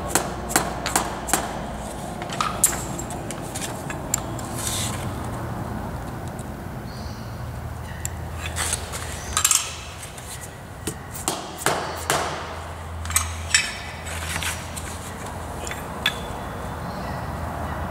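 Light, irregular taps of a plastic-faced mallet on a cylinder casting clamped in a milling-machine vise, nudging it into square against an engineer's square. A quick run of taps at the start, then more scattered taps about halfway through.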